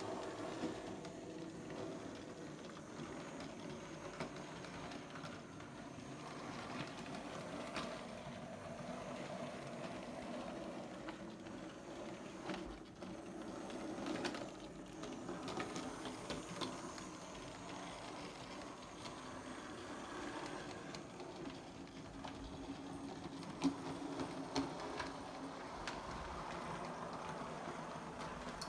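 Model railway locomotive running along its track: a steady mechanical hum and rattle, with a few sharp clicks about halfway through and again near the end.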